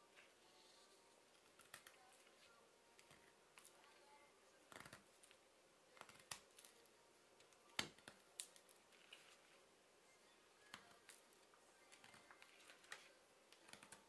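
Small carving knife slicing thin shavings from a short length of branch wood: faint, irregular crisp cuts and small cracks, the sharpest one about eight seconds in.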